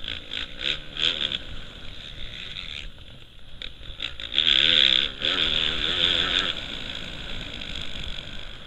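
Motocross bike engine revving up and down with the throttle, heard from the rider's helmet camera. It eases off and goes quieter about three seconds in, then opens up loud again about four and a half seconds in.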